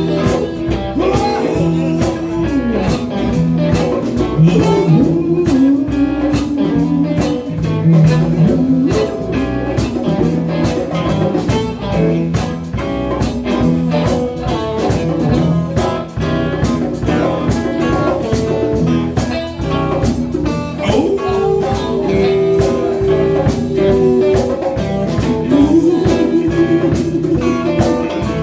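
Blues band playing an instrumental break, with a guitar-led line of long held and bent notes over a steady beat.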